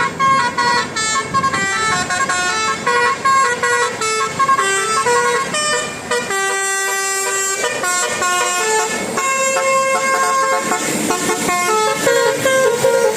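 Basuri telolet bus horn playing a fast tune of short pitched notes. About six seconds in it holds a chord for over a second, then the quick notes start again.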